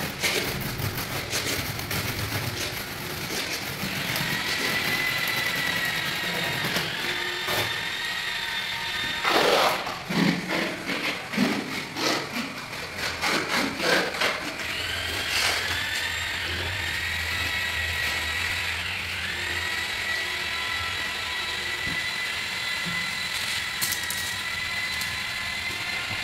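A power tool whines steadily, its pitch dipping briefly a few times. In the middle, a steel trowel scrapes and knocks through wet tile mortar in a quick run of strokes.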